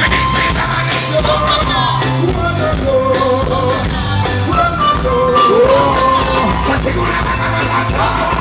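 Live band music at a sound check, with a singer's voice over a steady bass line and drums.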